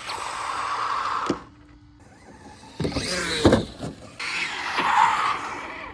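Radio-controlled car's electric motor whining in bursts as the car drives, with a pause about one to three seconds in.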